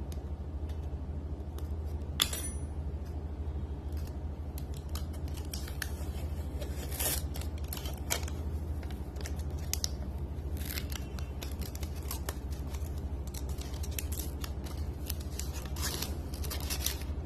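Small clicks, crackles and scrapes of sticky protective covering being picked at and peeled off clock-kit parts, with a sharp click about two seconds in, over a steady low hum.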